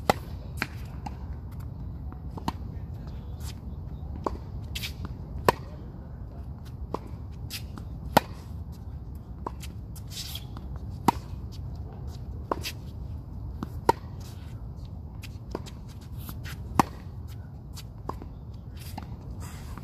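Tennis rally on a hard court: sharp pops of racket striking ball from the near player about every three seconds, with fainter ball bounces and hits from the far end in between, over a steady low rumble.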